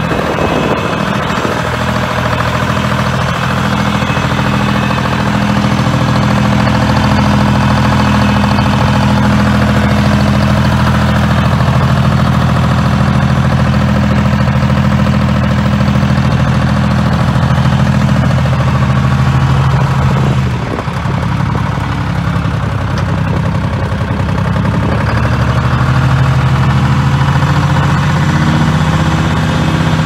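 Detroit Diesel 3-53 three-cylinder two-stroke diesel engine of a Michigan Clark BL700 backhoe loader running steadily. About twenty seconds in the engine note dips and wavers, then settles back to steady running a few seconds later.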